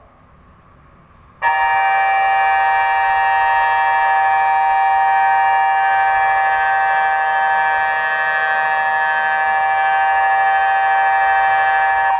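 InaTEWS tsunami early-warning siren sounding a steady, unwavering chord of several tones, starting about a second and a half in and holding at full level for about ten seconds. This is a test sounding of the warning system.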